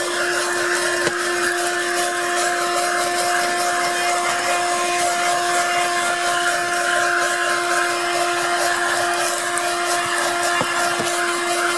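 A 12-volt corded car vacuum cleaner with a 106 W motor runs steadily with a constant hum, its brush attachment vacuuming dust from a car's floor.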